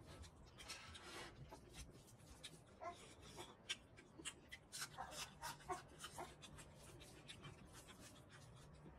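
Faint close-up eating sounds: fingers squishing and mixing curry rice on a plate, and wet chewing and lip smacking, a run of many short wet clicks that is busiest in the middle.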